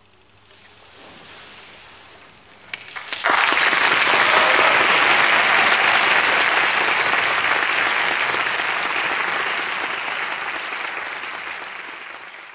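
Audience applauding: after a hushed pause and a few single claps, full applause breaks out about three seconds in and slowly tapers off.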